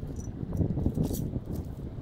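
Dead branches and brush rustling and crackling as they are handled, with the loudest crackling in the middle.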